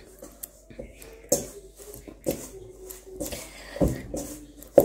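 Hands kneading soft samosa dough in a stainless steel bowl: irregular soft squishes and knocks as the dough and hand bump against the bowl.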